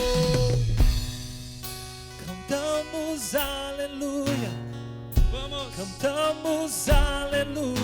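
Live gospel worship band music: bass and drums under a melody line with vibrato, with sharp drum hits about five seconds in and near the end.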